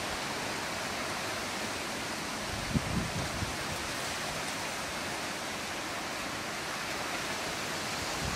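Steady, even background hiss, with one brief low bump nearly three seconds in.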